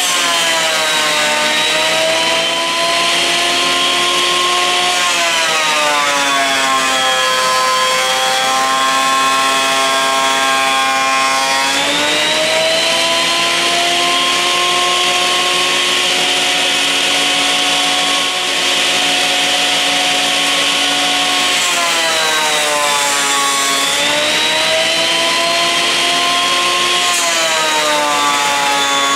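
Thickness planer running and planing short sipo mahogany boards. Its motor whine sags in pitch while a board is being cut and climbs back as the board clears, most clearly in the first few seconds and again about three-quarters of the way through.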